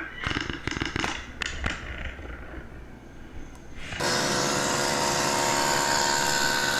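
Several sharp knocks in the first two seconds, then about four seconds in a loud, steady, machine-like whir with a droning hum cuts in suddenly and keeps going.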